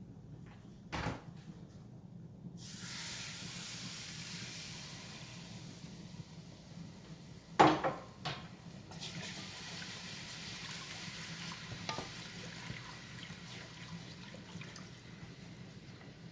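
Evaporated milk poured into a hot butter-and-flour roux in a saucepan, hissing as it hits the pan; the hiss starts suddenly a few seconds in and slowly dies down as it is stirred. A sharp knock against the pan about halfway through is the loudest sound, with softer knocks about a second in and near the end.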